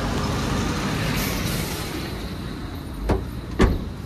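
Tailgate of a Maruti Suzuki WagonR being shut: two thumps about half a second apart near the end, the second the louder, over steady road traffic.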